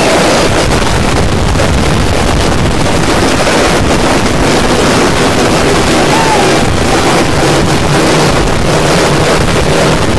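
Robinson R66 turbine helicopter running close by with its rotor turning: a loud, steady engine-and-rotor noise, with rotor-wash wind buffeting the microphone.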